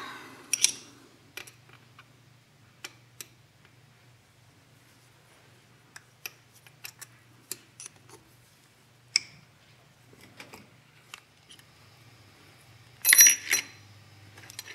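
Scattered sharp metallic clicks and clinks of a hex key and small steel bolts being worked on and set down around a motorcycle engine case, with a louder ringing clatter of metal parts near the end.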